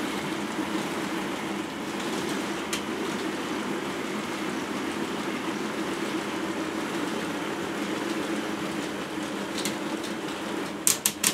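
Four K'NEX motors driving a plastic gear train, running steadily under load with a constant hum and rattle. A single sharp click comes about a third of the way in, and a quick run of sharp clicks near the end. The drive is straining against the heavy sliding arm carriage, which the builder finds is too much for even four motors to move.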